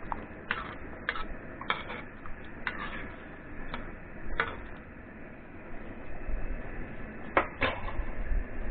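A metal ladle and wooden spatula knock and scrape against a cast-iron pot while soup is stirred, making a string of short, irregular clicks with a pause of about three seconds in the middle.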